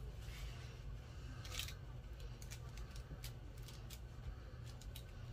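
Faint handling sounds of paper craft pieces and tools: a few scattered small, sharp clicks and rustles over a steady low hum.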